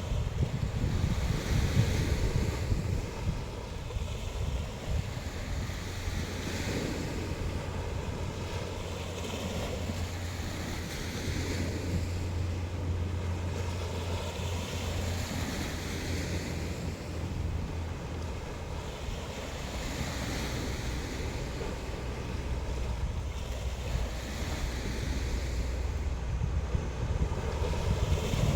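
Sea waves breaking and washing up the shore, hissing surges that swell and fade every few seconds, over a heavy low rumble of wind buffeting the microphone.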